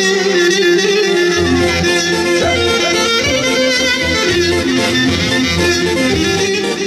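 Traditional Thessalian dance music from Karditsa, played as an instrumental passage with no singing. Sustained melody lines carry on throughout, and a steady low rhythmic bass comes in about a second and a half in.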